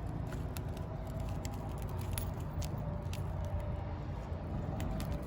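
Faint, irregular clicks and crackles of a smashed phone's cracked glass and loosened screen being handled, over a steady low background rumble.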